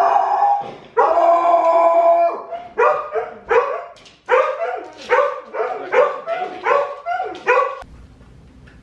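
Dog howling in two long, wavering calls, then giving a quick run of short yips and barks, about two a second, that cut off abruptly near the end.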